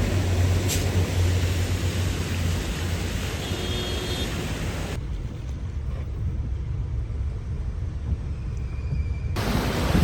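Road traffic: a steady low rumble of vehicles under a broad hiss, with a brief faint tone about three and a half seconds in. The hiss drops away for about four seconds past the middle, leaving only the low rumble.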